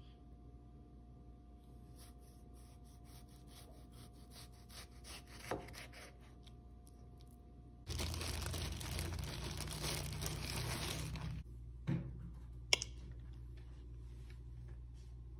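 Plastic bread bag crinkling as it is handled and opened, for about three and a half seconds from about halfway in, followed by a couple of light knocks.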